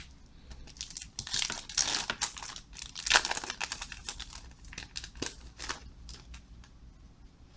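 Plastic foil wrapper of a baseball card pack crinkling and tearing as the pack is opened, in a run of rustles that is loudest in the first half and then tapers off.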